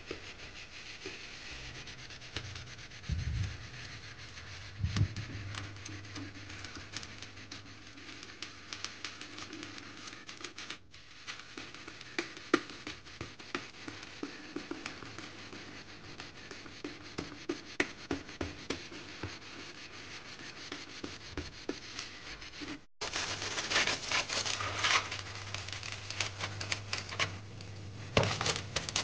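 Coarse scouring sponge scrubbing burnt-on crust off a stainless steel saucepan: a run of rasping rubbing and scratching strokes of rough sponge on foamy metal. The scrubbing becomes louder and brighter after a break about two-thirds of the way in.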